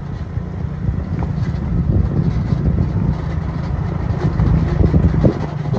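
Motorcycle engine running steadily, a continuous low rumble mixed with wind noise on the microphone as the bike rides along.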